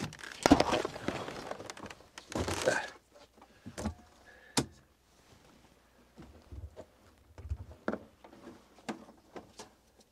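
Things being handled: two brief rustling, scraping noises in the first three seconds, then scattered sharp clicks and knocks and a couple of low thumps.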